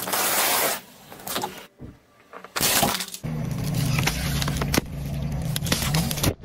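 Car tyre crushing things on asphalt: a loud crunch of tortilla chips at the start, then the car's engine running low while the tyre rolls onto a row of juice cartons, which crackle, pop and squirt.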